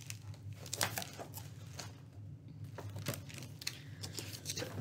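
Pages of a large hardcover picture book being handled and turned: faint scattered paper rustles and light taps, over a low steady hum.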